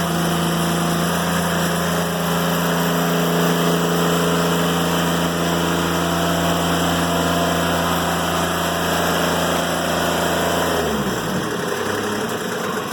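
Diesel engine of a Timberking 1400 sawmill running steadily at working speed, then throttled back about eleven seconds in, its pitch sliding down to a lower idle.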